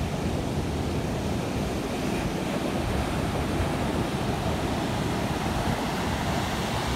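Ocean surf breaking on a beach, a steady rush of waves, with wind rumbling on the phone's microphone.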